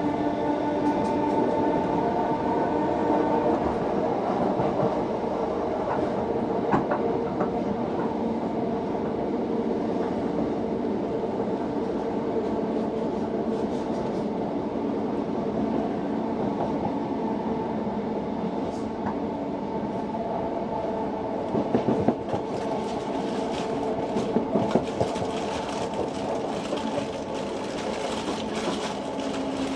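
Electric passenger train running at speed, heard from inside the carriage: a steady rumble of wheels on rail with a few steady tones over it. About two-thirds of the way through come several sharp clicks of the wheels over rail joints.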